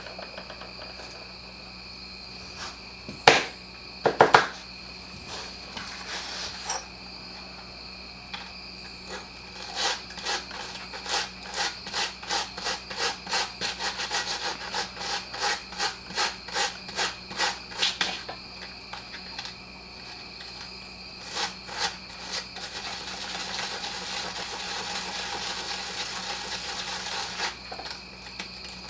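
Hand scraping or brushing on a small part, a run of regular strokes about two a second, with a few sharp knocks a few seconds in and a steadier rasping near the end.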